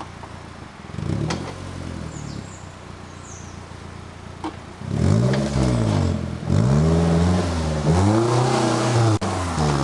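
Suzuki Jimny JB43's 1.3-litre four-cylinder petrol engine labouring off-road: a light rev about a second in, then from about halfway through it is revved up and down in about four strong bursts. Faint birds chirp in the first half, and there are a few sharp clicks.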